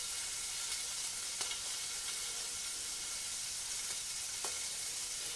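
King scallops frying in hot olive oil in a non-stick frying pan, with freshly added chopped garlic and chilli: a steady sizzle with a few faint pops.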